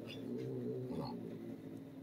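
Feral cat giving a low, drawn-out growl for about a second and a half while biting a leather work glove, fading out after that.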